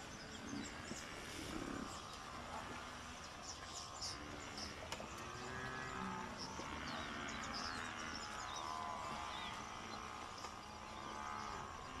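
Herd of African buffalo giving short, low calls now and then, with small bird chirps over a faint outdoor background.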